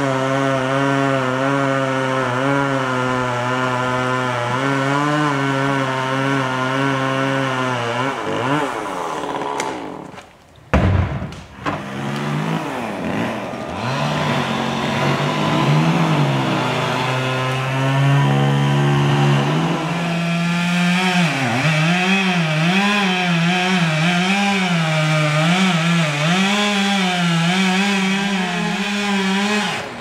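Chainsaw engine running at high speed, its pitch stepping and wavering. It cuts out briefly about ten seconds in, then runs again with a more unsteady, wavering pitch.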